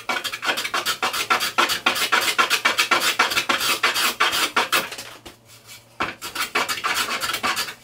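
Veritas block plane being pulled across the end grain of a pine board: a quick run of scraping, rasping cuts that breaks off about five seconds in and then starts again. Cutting end grain, it takes chunks rather than clean shavings.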